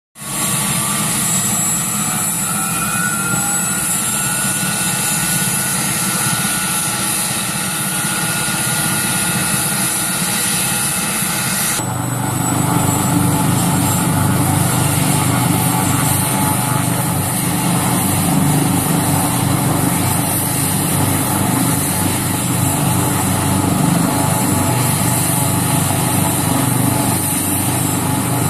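Air ambulance helicopter on the ground with its engines running and rotors turning: a steady high turbine whine over a fast, even rotor beat. About twelve seconds in the sound changes abruptly and the low rotor beat becomes stronger.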